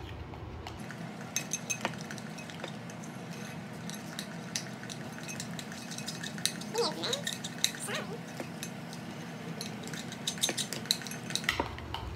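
A metal spoon stirring a thick glue-and-cornstarch slime mixture in a ceramic bowl, with irregular light clinks and scrapes against the bowl, alongside a spatula stirring in a plastic tub.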